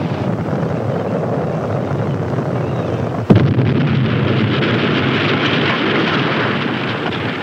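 Missile explosion: a steady roar, then a sudden loud blast about three seconds in, followed by a long rumbling roar.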